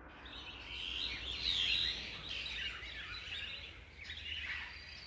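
A chorus of birds chirping, many quick high calls overlapping, loudest a little over a second in, over a faint steady low rumble of forest ambience.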